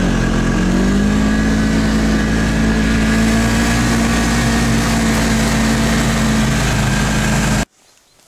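Snowmobile engine rising in pitch as it picks up speed, then running at a steady pitch while riding across snow. The sound cuts off suddenly near the end.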